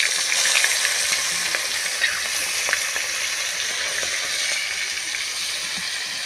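Snakehead fish pieces frying in hot oil in a wok: a steady sizzle with small crackling pops.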